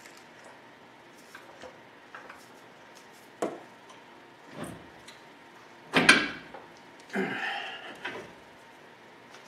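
Scattered clicks and knocks of metal parts being handled as an aftermarket tubular upper control arm is worked into its mounts on a pickup's front suspension. The loudest is a sharp clunk about six seconds in, followed by a longer knock and scrape.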